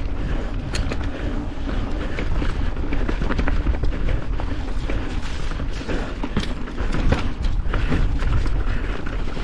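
Mountain bike riding over a rough, muddy trail: a steady rumble of wind on the microphone with frequent clattering knocks as the bike bounces over the ground.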